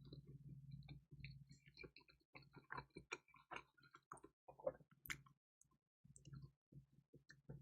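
Close-miked chewing of pizza, heard faintly as irregular wet mouth clicks and small crackles, with one sharper click about five seconds in.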